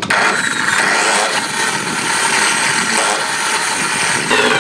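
AEG 9-inch angle grinder switched on with a sudden start and running free at full speed with a steady high whine, then starting to wind down about four seconds in. The grinder is faulty: its switch contacts keep welding together and it sparks and arcs as it runs.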